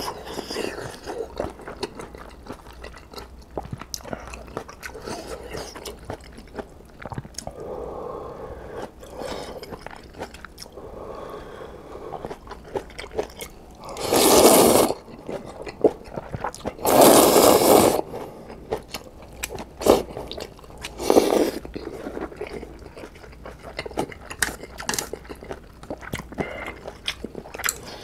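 Close-miked eating of Jin Ramen instant noodles: wet chewing with many small mouth clicks, and two loud slurps of noodles about halfway through, each lasting about a second, then a shorter slurp a few seconds later.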